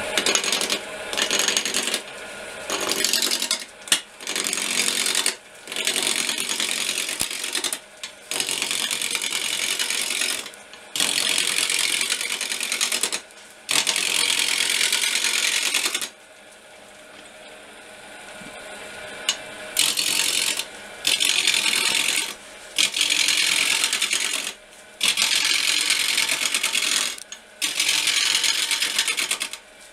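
Oak blank spinning on a wood lathe being roughed down toward a cylinder with a straight-edged roughing chisel: a series of loud scraping cuts, each lasting one to three seconds, with short pauses as the tool is shifted along the rest. About sixteen seconds in the cutting stops for a few seconds, leaving only the lathe's quieter running, then resumes.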